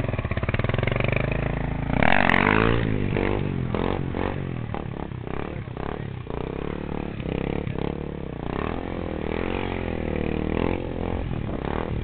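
Honda XR 250 Tornado's single-cylinder four-stroke engine revving hard about two seconds in as the bike pulls away into a wheelie. The revs then rise and fall repeatedly while the wheelie is held.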